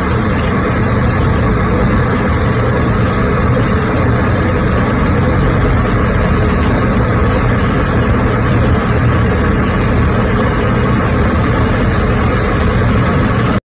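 Loud, steady rumbling noise with no clear rhythm, which stops suddenly at the end.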